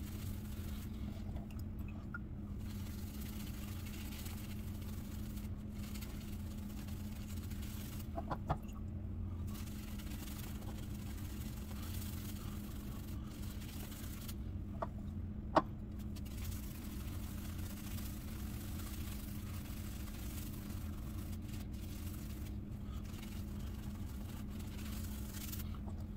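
Simpson Commodore X3 badger shaving brush swirling wet shaving soap into a lather: a steady swishing that pauses briefly a few times, with a couple of sharp clicks about eight and fifteen seconds in, over a steady low hum.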